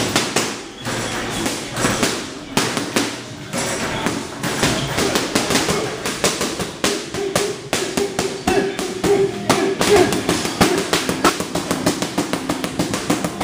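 Boxing gloves smacking focus mitts in quick, uneven flurries, over background music.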